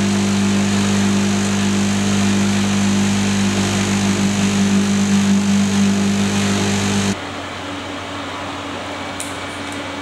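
Oil-mill machinery running with a loud, steady electric-motor hum while it works avocado paste. About seven seconds in, the sound drops suddenly to a quieter, different steady machine hum.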